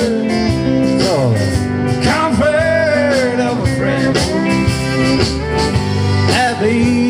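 Live country-rock band playing: acoustic and electric guitars, bass guitar, drums and pedal steel guitar.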